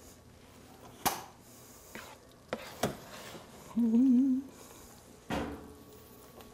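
A few scattered clinks and knocks of kitchen utensils against pots and pans, with a short wavering hum from a person just past the middle, the loudest sound.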